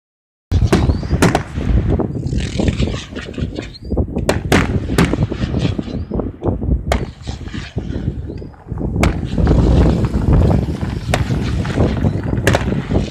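Aerial firework shells bursting: about ten sharp bangs at irregular intervals, over a continuous low rumble with crackling between the reports.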